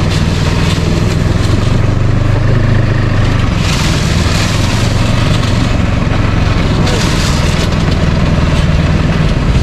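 Snowmobile engine running at low speed, a steady low hum.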